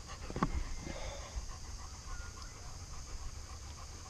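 A dog panting steadily in quick, even breaths, about three a second.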